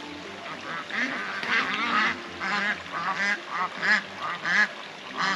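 Domestic ducks quacking in a rapid run of about a dozen short calls, starting about a second in: alarm calls as a cat chases them.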